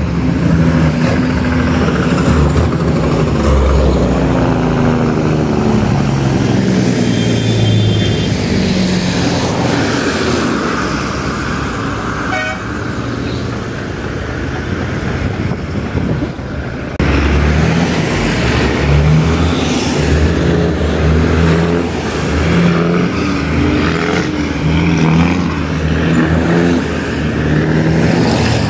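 Heavy diesel truck's engine brake (jake brake) firing, a loud pitched blatting that steps up and down with engine speed. A second truck's brake cuts in abruptly about two-thirds of the way through.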